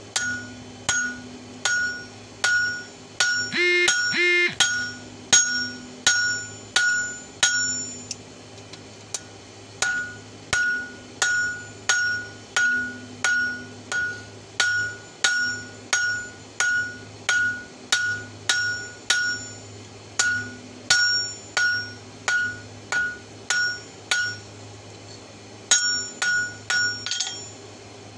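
Blacksmith's hammer striking the red-hot open end of an old wrench on a steel anvil, forging it into fork tines. The blows come in a steady run of about two a second, each with a bright ring from the anvil, with short pauses about eight seconds in and near the end. A couple of blows about four seconds in ring fuller and longer.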